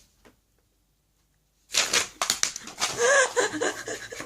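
Dead silence for under two seconds, then crackly rustling of paper or plastic packaging being handled, with a few brief voice sounds mixed in.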